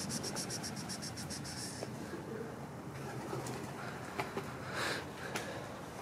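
Birds calling: a rapid high-pitched trill of about eight notes a second that stops about two seconds in, followed by a few soft clicks and a brief rustle near the end.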